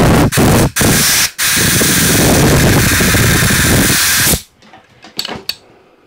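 Compressed air from a shop airline blowing through a connecting rod's oil feed passage to the gudgeon pin, clearing oil out of it: a few short blasts, then one long blast of about three seconds that cuts off suddenly.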